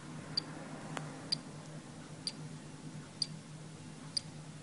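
Teledyne Benthos underwater acoustic beacon (black box pinger) pinging in air, switched on by a beacon tester that simulates immersion in seawater: short, high ticks about once a second, five in all, over a low steady hum.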